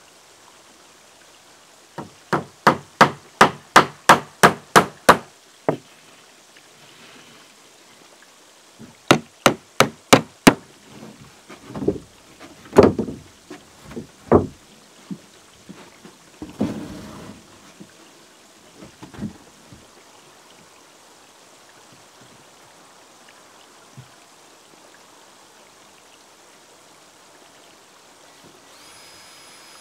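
Hammer driving nails into wooden boards: a quick run of about ten blows at roughly three a second, a pause, five more, then slower scattered knocks. A faint high whine starts near the end.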